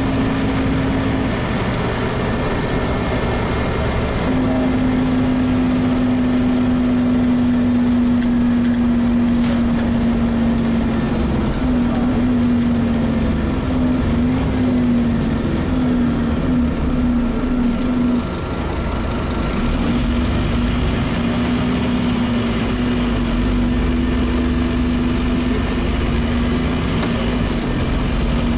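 A Scania Omnicity N230UD double-decker bus heard from inside the passenger saloon while driving, its nine-litre five-cylinder diesel and driveline running under a steady rumble of road noise. A steady whine runs over it, sinking slightly in pitch and wavering. About two-thirds of the way through it cuts out briefly with a short dip in loudness, then comes back.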